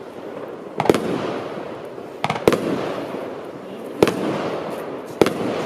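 Ding Dong barrage firework cake firing: five sharp bangs about a second apart, two of them close together near the middle, each followed by a dense crackle as the shots burst.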